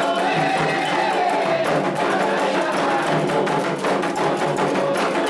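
Candomblé ritual music for Oxumaré: atabaque hand drums beat a dense, steady rhythm, with a bell ringing along and voices singing a chant over them.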